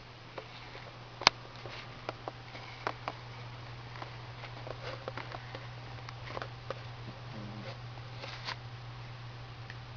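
A standard schnauzer snoring softly in its sleep, over a steady low hum, with scattered sharp clicks, the loudest about a second in.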